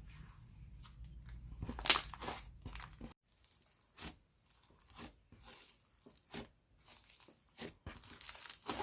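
Cloud-textured slime being fluffed and worked by hand, giving irregular crackly clicks and sizzles, loudest about two seconds in.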